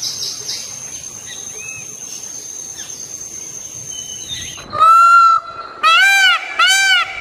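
A steady high, thin whine with a few faint bird chirps. About five seconds in, a bird starts calling loudly: one flat note, then a run of calls that each rise and fall in pitch, about two a second.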